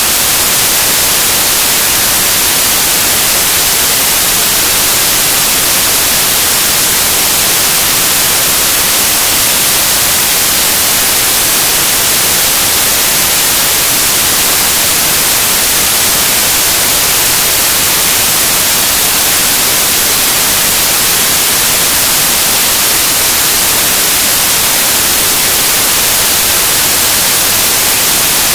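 Loud, unbroken static hiss, perfectly even and strongest in the high end, with no other sound heard through it. This is electronic noise on the recording, not sound from the scene.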